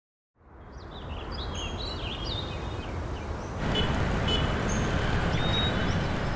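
City traffic rumbling with birds chirping over it, fading in from silence. About three and a half seconds in, the traffic noise gets louder.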